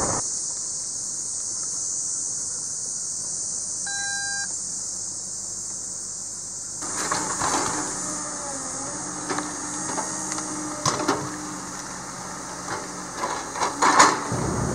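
A steady high hiss, with a single short beep about four seconds in. From about halfway, a Tigercat knuckleboom log loader runs with a steady engine hum, and logs knock as they are swung onto a log trailer; the loudest knock comes near the end.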